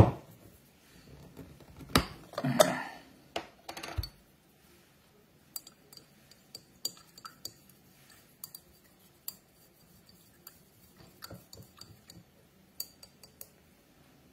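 Glass jar handled on a cutting mat: a few sharp knocks and a rustle in the first four seconds, then a run of light glass clinks and taps, some with a faint ring.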